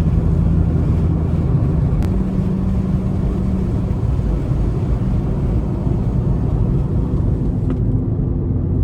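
Volkswagen Mk7 GTI's turbocharged four-cylinder engine and road noise while driving slowly: a steady low rumble, the engine note shifting slightly about two seconds in.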